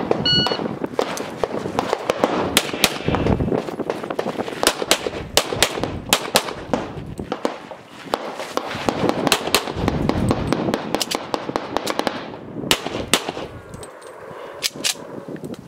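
A shot timer beeps once to start the run, then a pistol fires in rapid strings of sharp shots, dozens in all, with short lulls between strings.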